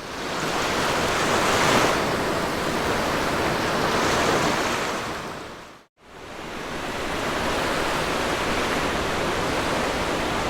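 Sea waves washing onto a beach: a steady rush of surf that swells twice, drops out briefly to silence about six seconds in, then fades back in.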